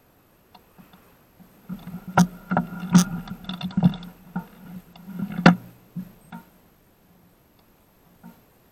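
A bicycle rattling and knocking as it jolts over bumps on a dirt path. Several sharp metallic knocks with a brief ring come between about two and six seconds in.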